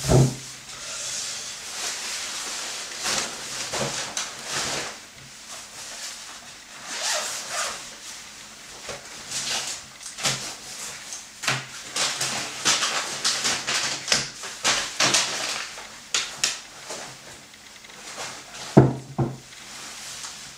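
Thin plastic shopping bag rustling as groceries are unpacked, with occasional knocks as items are set down on a wooden table, the loudest knock near the end.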